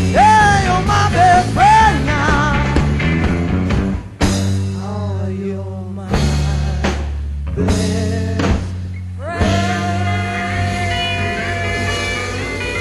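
A live 1960s psychedelic rock band playing an instrumental passage, with an electric lead guitar bending and wavering notes over bass and drums. About four seconds in the band breaks into a run of short stops and hits, and then a long held guitar note rings out.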